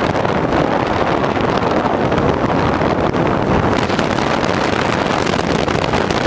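Wind rushing over the microphone of an action camera mounted on the outside of a moving car: a loud, steady roar of noise, with the car's road noise underneath.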